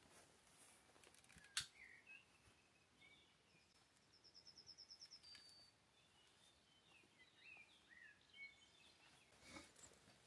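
Near silence with faint birds chirping: scattered short calls and, in the middle, a quick trill of about a dozen even notes. A single sharp click about a second and a half in, and a few softer clicks near the end.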